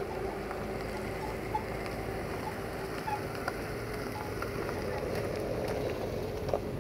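A CFR Class 65 'Jimmy' diesel locomotive, EMD-built, runs with a steady low engine rumble as it slowly approaches, a faint held tone over it. A few short clicks come at about a second and a half in, around three seconds and near the end.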